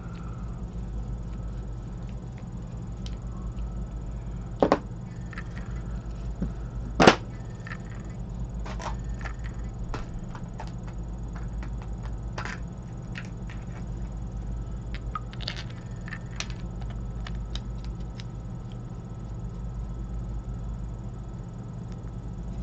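Small clicks and taps from a vape pen and its battery being handled and screwed apart, the two sharpest about five and seven seconds in, over a steady low hum.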